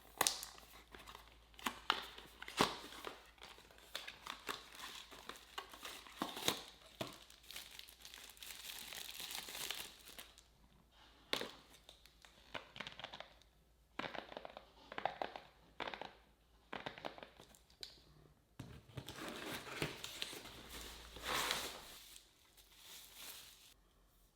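Packaging being unwrapped by hand: irregular crinkling and tearing with sharp clicks and rustles, in stretches with short pauses between.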